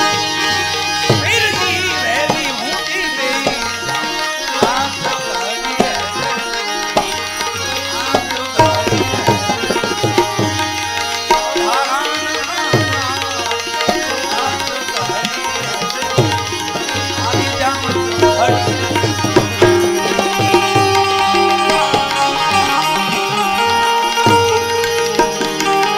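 Instrumental passage of a Gujarati devotional bhajan: tabla playing a steady rhythm, with bending bass strokes, under a held melodic accompaniment.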